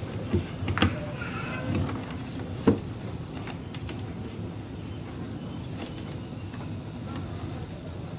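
Steady hiss with a few short, sharp knocks and clicks; the loudest knock comes nearly three seconds in.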